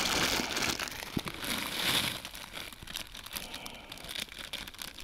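Noodle packet crinkling as dry noodles are tipped out of it into a pot of hot water, loudest in the first couple of seconds and then easing off.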